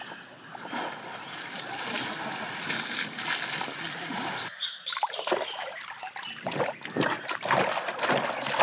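Water splashing and sloshing as Asian elephants bathe and spray themselves in a shallow pool. About four and a half seconds in it cuts suddenly to choppier, irregular splashing of pelicans bathing and beating their wings in the water.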